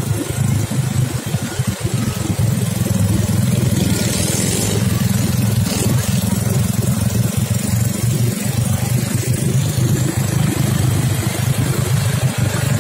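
ATV (quad bike) engine running steadily at low speed.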